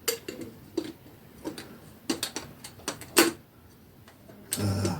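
Light metal clicks and clinks as a binocular's 60 mm objective lens is handled and seated in its bayonet mount: a dozen or so sharp taps, the loudest about three seconds in, then brief handling noise near the end.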